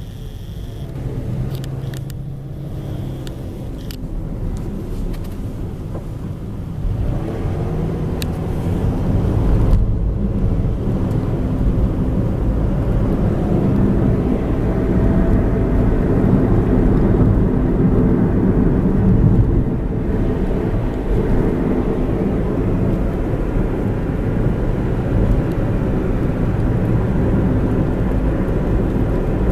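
Car road noise heard from inside the cabin: engine and tyres droning steadily, getting louder about seven seconds in as the car picks up speed, then holding steady.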